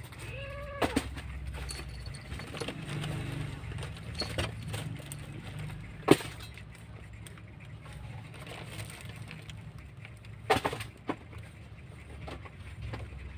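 Two kittens play-fighting in a wooden crate lined with newspaper: scattered rustles, crinkles and sharp knocks from paws and bodies on the paper, cartons and boards. The loudest knock is about 6 s in and a quick cluster comes about 10.5 s in. A short animal call comes about half a second in, over a steady low hum.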